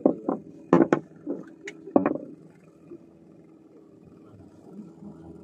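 Boat engine idling with a steady low hum. Several sharp knocks and bumps come in the first two seconds, the loudest about a second in.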